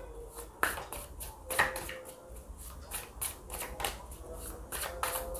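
A deck of oracle cards shuffled by hand, overhand: irregular quick taps and slaps of the cards sliding against each other.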